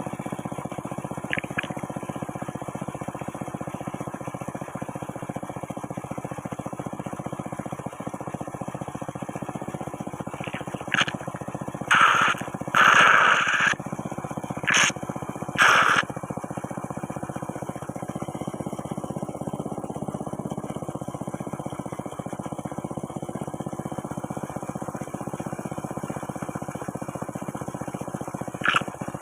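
Water whirlpool sucking air down its vortex: a steady rumbling churn, with a few louder slurping sounds in the middle, like coffee being slurped.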